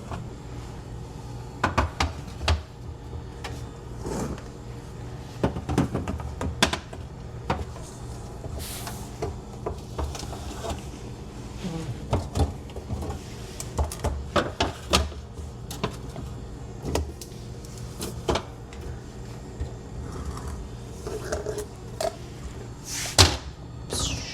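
Food containers, cans and bottles knocking and clattering against refrigerator shelves as they are handled and moved, in short irregular knocks, with a sharper clack near the end.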